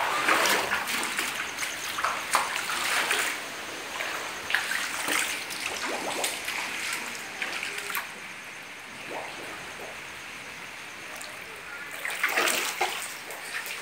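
Floodwater splashing and sloshing under footsteps wading across a flooded house floor, in irregular strokes, heavier in the first half and again near the end.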